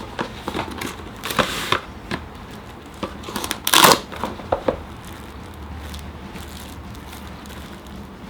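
Handling noises while making food: scattered clicks and knocks, with two short rustling or scraping bursts about one and a half and four seconds in, the second the louder.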